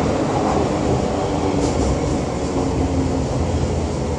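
An RET SG2 metro car running at speed, heard from inside: a steady rumble of wheels on rails with faint steady tones over it.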